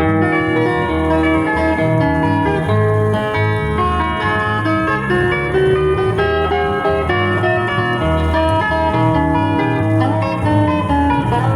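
Live band music led by plucked guitars over a steady bass line.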